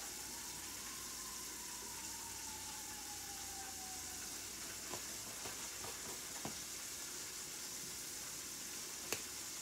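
Steady hiss of a pot of coconut milk and water heating on an electric stove, with a few light clicks as seasoning is shaken in from a plastic jar.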